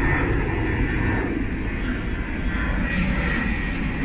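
Steady engine roar of a low-flying jet airliner, mixed with a Class 185 diesel multiple unit approaching along the line.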